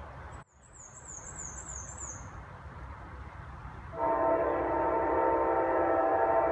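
Amtrak locomotive air horn sounding from about four seconds in, a steady loud chord of several tones. Earlier, a bird gives a quick series of high, falling chirps over outdoor background noise.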